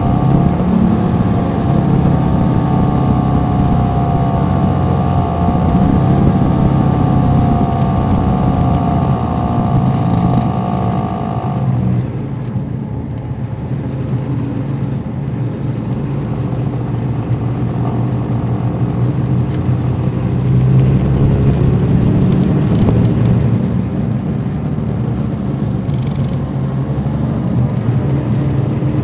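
Cabin sound of a 2007 MCI D4500CL coach's Caterpillar C13 diesel engine pulling the bus along, with a steady high whine over the engine that cuts out about twelve seconds in. The engine note then grows louder again around twenty seconds in.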